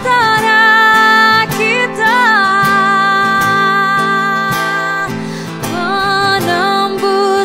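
Woman singing a ballad in Indonesian, accompanied by her own acoustic guitar. She holds long notes, one of them for about three seconds in the middle, over the plucked guitar.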